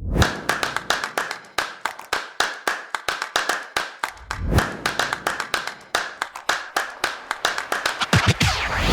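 A run of sharp percussive hits, irregularly spaced and coming faster toward the end, with a rising sweep in the last half second.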